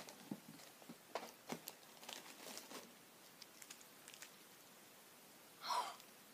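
Plastic candy wrapper crinkling in short scattered crackles as the bag is handled, with one louder, brief sound near the end.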